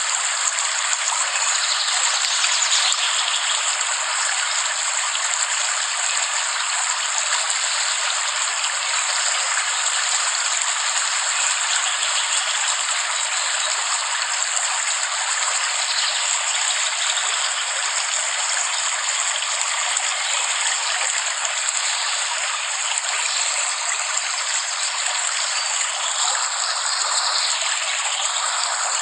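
Steady rain falling, an even, unbroken hiss with no low rumble and no thunder.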